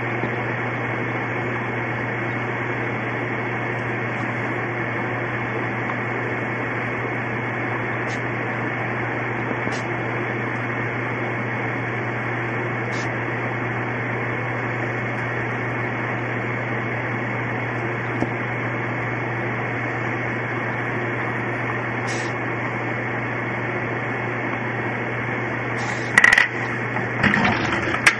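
Steady hiss with a low electrical hum throughout. A few faint clicks through the middle, then a cluster of sharper clicks and knocks near the end.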